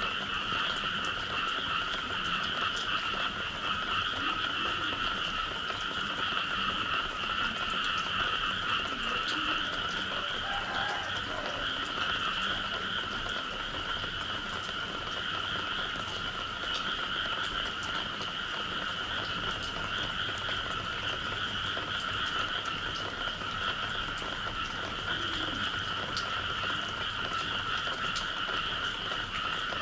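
A dense chorus of many frogs calling after rain, a continuous, even din in two pitch bands with no pauses.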